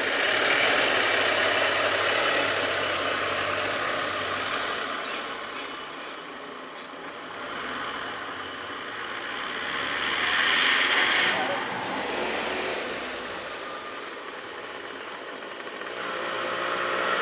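A motor vehicle's engine running with a steady rushing noise that swells about two-thirds of the way through, and a faint, even, high ticking repeating throughout.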